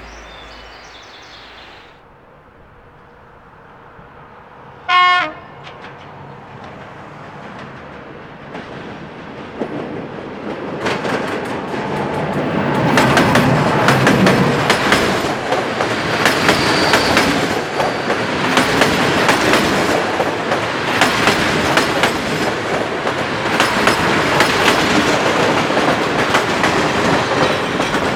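Regional passenger train: one short horn blast, then the train comes in close and runs by, loud, with its wheels clicking rhythmically over the rail joints.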